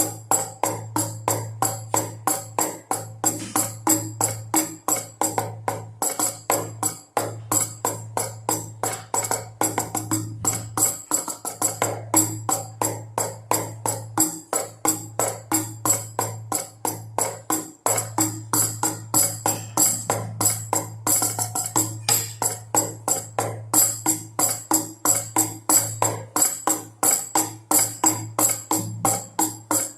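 A baby rattle shaken in a steady, even beat together with two drums, about two strokes a second.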